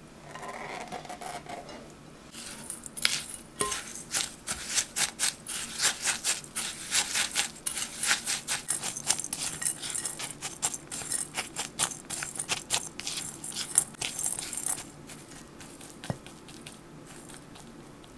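A utensil clicking rapidly against a mixing bowl while cheesecake batter is mixed, several quick clicks a second. The clicking starts about two seconds in and stops about fifteen seconds in.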